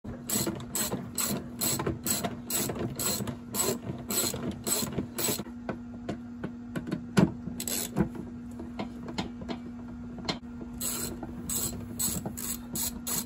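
Ratchet wrench on a long extension clicking in quick, even strokes, about three a second, as a bolt is turned out during engine removal. A fast run of clicks at the start, only a few scattered clicks in the middle, then quick ratcheting again near the end, over a steady low hum.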